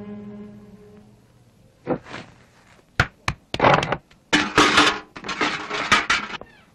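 A held musical chord fades out. After about a second of quiet, an irregular run of sharp knocks and thuds clatters for about four seconds.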